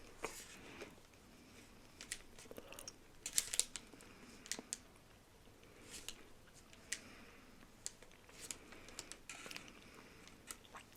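Faint chewing of a snack, with scattered small clicks and crinkles from handling the snack packet.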